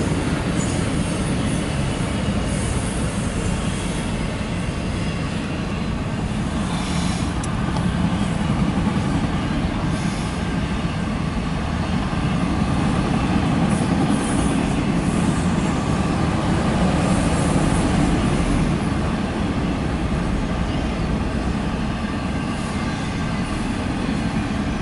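CSX freight train with autorack and intermodal cars rolling past, wheels running on the rails in a steady, continuous noise.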